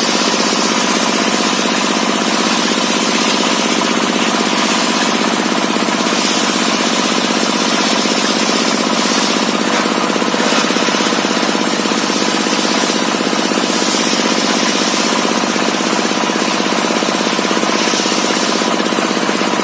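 Homemade table-mounted circular saw ripping a log lengthwise: the large blade cuts through the wood over a steady loud drone from the saw's drive. The cutting hiss grows brighter for a moment every few seconds as the log is pushed into the blade.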